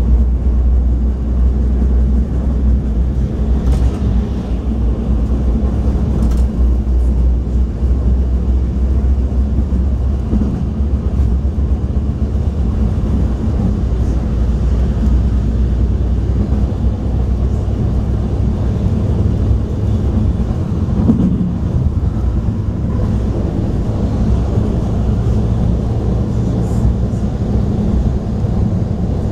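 Inside a Stadler GTW diesel light rail car of the River Line under way: a steady low rumble and drone of the diesel engine and wheels on the track.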